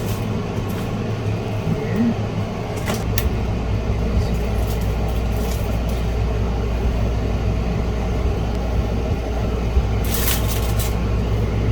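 Steady low hum that deepens about three seconds in, just after a click, with a cluster of short clicks and knocks near the end.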